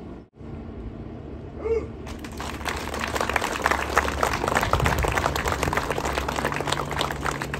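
Crowd applauding, starting about two seconds in and keeping up steadily.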